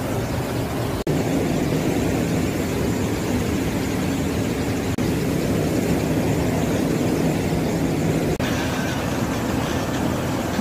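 Fast mountain river rushing over boulders in whitewater rapids, a steady loud rushing noise that breaks off for an instant three times, about one, five and eight seconds in.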